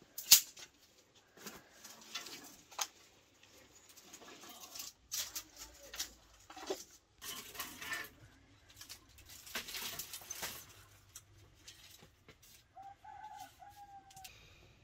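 Dry twigs and brushwood being snapped and handled: a string of sharp cracks and rustles, the loudest about a quarter second in. Near the end a bird calls briefly.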